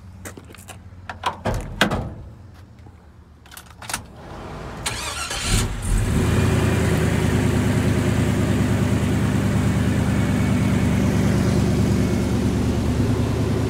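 A few clicks and knocks of handling in the cab. Then, about five seconds in, the truck's LS V8 engine starts and settles into a loud, steady idle.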